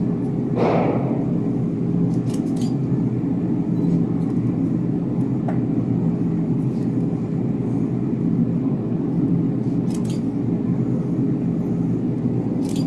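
Steady low machine hum made of several even tones, with a few faint clicks about two and a half and ten seconds in.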